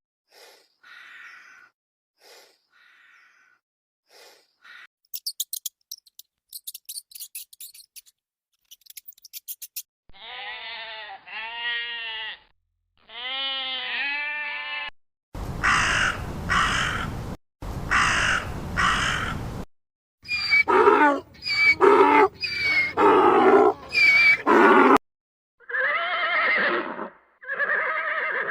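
A string of different animal calls, one after another: faint short calls, then rapid high-pitched chirping, two long wavering calls, two loud harsh calls, a quick run of about eight short calls and two more calls near the end.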